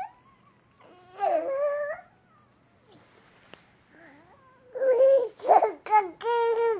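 A toddler's excited high-pitched squeals and babbling: one drawn-out squeal about a second in, then a quick run of short, clipped squeals near the end.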